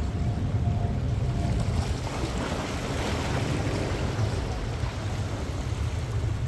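Small ocean waves washing and splashing against the boulders of a rock breakwater, swelling about two and a half seconds in and then easing. Wind rumbles on the microphone throughout.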